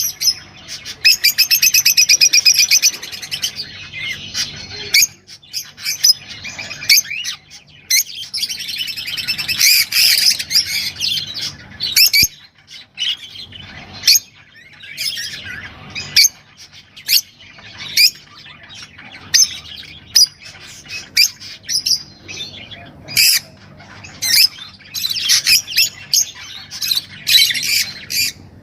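Small cage songbirds singing: a dense run of rapid high trills and sharp chirps, with a fast rattling trill near the start.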